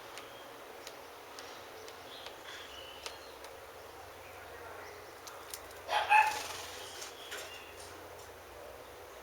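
A dog gives a short, loud bark about six seconds in, over faint bird chirps.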